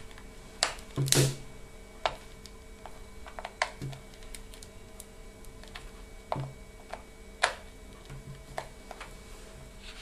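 Screwdriver blade clicking and scraping against a tamper-proof screw and the hair dryer's plastic housing as the screw is turned out: scattered light clicks a second or two apart, the loudest about a second in.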